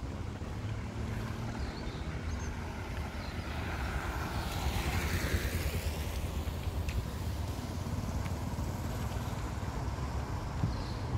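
A road vehicle passes close by, its noise swelling to a peak about five seconds in and then fading, over a steady low rumble of traffic and wind.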